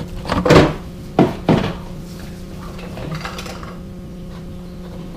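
Hard parts and tools knocking and rattling as they are handled in a car's engine bay: a quick run of sharp clacks in the first two seconds, then lighter handling sounds. A low steady hum runs underneath.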